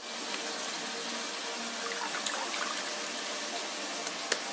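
Wet squelching and trickling as fresh butter is squeezed by hand in a steel bowl, buttermilk dribbling back into the clay churning pot below; the sound is a steady wet hiss with a few faint ticks.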